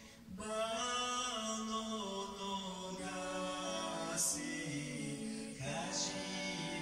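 A man singing slow, long-held notes with soft musical backing, heard off a television's speaker. The sound dips briefly right at the start, then the singing carries on.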